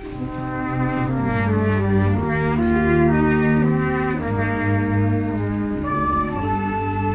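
Brass band playing a slow passage of held chords, with French horn, trumpets and low brass together, the chords moving on every second or so.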